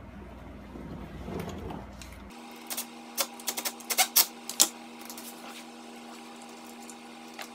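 Hand ratchet clicking in short, irregular runs for about two seconds around the middle, tightening a bolt through a plastic splash-flap tab under a car's front end, after some muffled handling noise.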